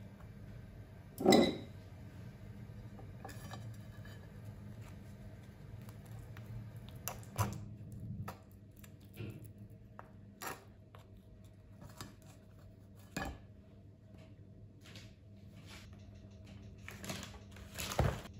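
Dishes and cutlery clinking and knocking in separate strokes over a steady low hum, the loudest knock about a second in and another near the end.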